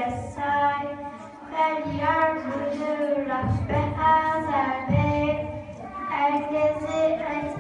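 A young girl chanting in a melodic, ornamented voice: long held notes whose pitch bends and wavers, in several phrases with short pauses for breath.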